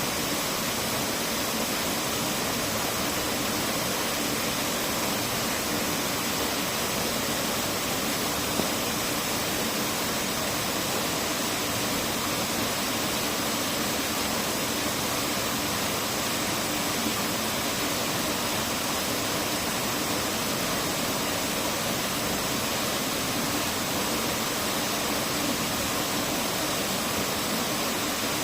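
Steady rushing water, an even noise that does not change.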